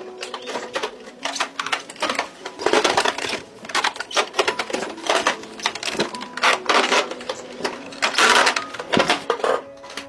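Stone edge-runner mill: a heavy stone wheel rolling around a stone bed, crunching and crackling as it crushes dry granular material in dense, irregular clicks.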